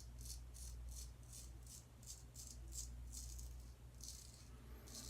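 Gold Dollar 208 straight razor scraping lathered stubble in quick short touch-up strokes, about three or four a second, with a short pause about three seconds in before a few more strokes.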